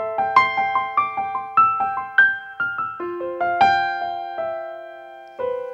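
Piano playing a song's introduction: a quick run of single struck notes over lower held notes, then a chord left to ring and fade for nearly two seconds before the next phrase begins near the end.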